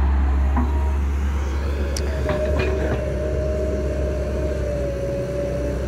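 XCMG XE135B excavator's Isuzu 4BG1 diesel engine running steadily under working load, a deep continuous rumble as the machine swings and digs. A few light knocks come about two seconds in, and a steady whine joins them and holds on.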